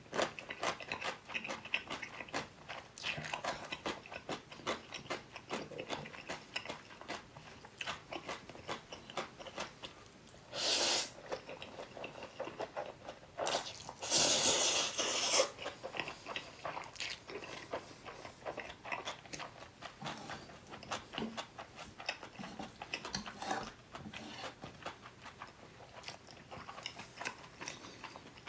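Close-miked eating of black-bean noodles and pickled radish: a steady run of quick chewing and crunching bites, with two louder slurps of noodles, a short one about eleven seconds in and a longer one a few seconds later.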